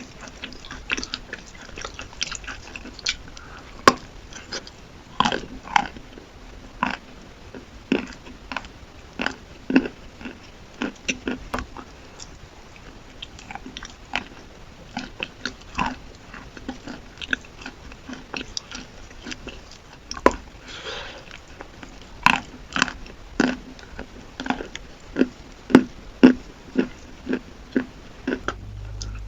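A person biting and chewing chalk with chalk paste close to the microphone: sharp, irregular crunches, one after another, with a brief softer crumbling stretch about two-thirds of the way through.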